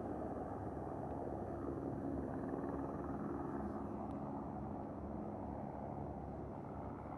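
Steady low rumble of a distant aircraft's engines overhead, with a faint hum in it, easing slightly after about four seconds.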